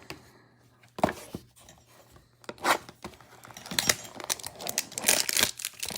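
Trading cards and their packaging being handled and torn open: a few sharp snaps, then a busier stretch of crinkling and tearing in the second half.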